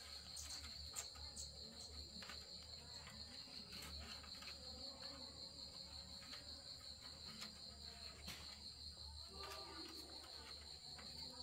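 Faint insect chorus: a steady, rapidly pulsing high-pitched trill, with scattered faint clicks.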